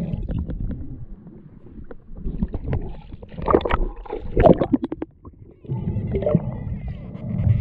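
Water heard through an underwater action camera on a swimming diver: muffled low rushing, then a few seconds in a burst of splashing and gurgling as the camera breaks the surface, and low rumbling water again once it is back under.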